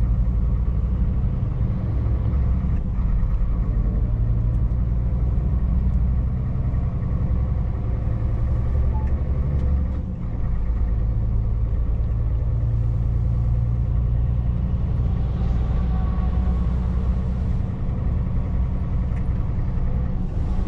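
Scania V8 truck engine cruising, heard from inside the cab as a steady low drone mixed with road noise, dipping briefly about ten seconds in.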